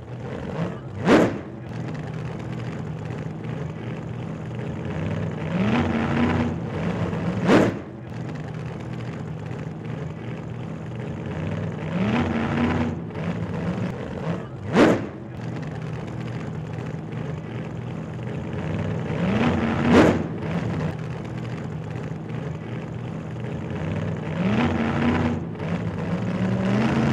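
Engine sound repeating in a regular cycle about every six and a half seconds: a steady low drone, a short rising rev, and a sharp hit.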